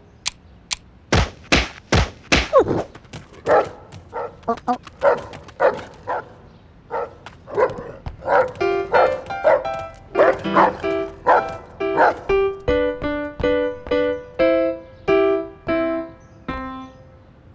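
Cartoon sound effects: a quick series of sharp knocks, then a dog barking in short yaps, then upright piano notes struck one after another in a quick bouncing rhythm as the keys are hopped on.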